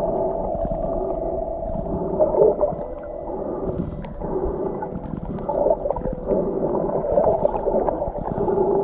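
Muffled churning and gurgling of water, heard underwater around a swimming snorkeler, with a few louder swells.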